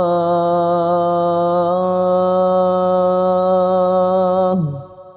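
A boy's voice chanting the adhan, the Muslim call to prayer, holding one long drawn-out note at the end of the line 'ashhadu an la ilaha illa Allah'. The pitch steps up slightly a little under two seconds in, then falls away near the end into a fading reverberant tail.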